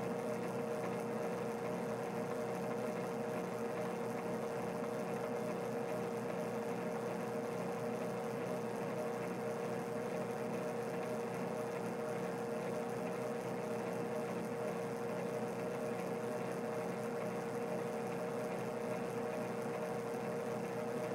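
Small metal lathe running at a steady speed: a constant motor hum with a steady whine, while the cutter is brought in for a light scratch pass to zero it.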